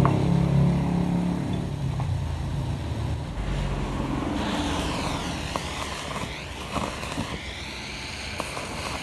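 A motor vehicle engine running, loud at first and fading away over the first few seconds. After that comes a wavering hiss with a few light clicks.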